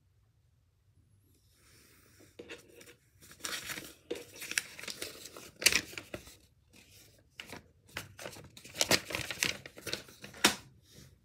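Paper being torn and crumpled by hand in irregular crackling bursts. It starts about two seconds in and grows louder in two spells, the later one the loudest.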